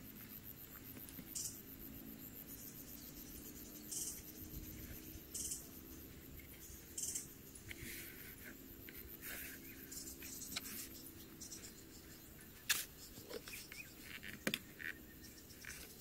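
Soft scrapes and rustles of a rubber strip being handled against a plastic bin every second or two, with two sharp clicks near the end. Underneath is a faint, steady, high insect whine.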